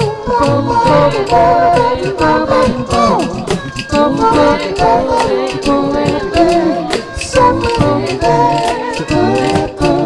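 Vocal improv group singing a cappella in several layered parts, over a beat of sharp cajón hits. One voice slides down in pitch about three seconds in.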